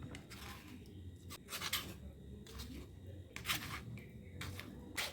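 About eight short scraping strokes at uneven intervals from kitchen utensils at work in food preparation.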